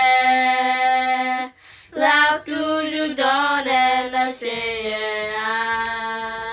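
A young woman and a girl singing a hymn together without accompaniment, holding long notes. There is a short break about a second and a half in, and a long held note from about two-thirds of the way through.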